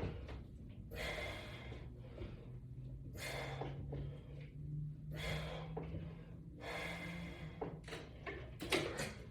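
A man breathing hard under exertion during a resistance-band pulling exercise, a forceful breath about every two seconds.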